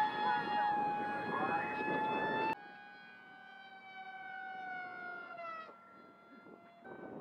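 High-pitched whine of an FPV racing wing's electric motor and propeller, its pitch drifting slowly down, with wind rumble on the microphone. It cuts off abruptly about two and a half seconds in to a quieter whine of the same kind, which also slides down.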